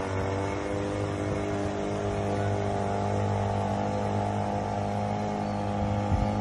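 Outboard motor of a rescue boat running steadily at an even speed, with a short knock about six seconds in.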